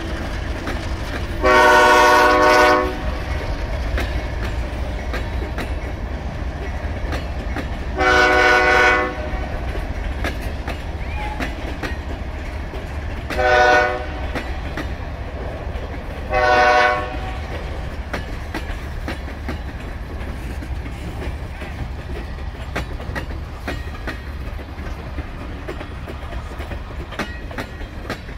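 Freight locomotive horn sounding two long blasts, a short one and a long one: the standard grade-crossing warning signal. Underneath it the freight cars of a CSX train rumble and clickety-clack past steadily.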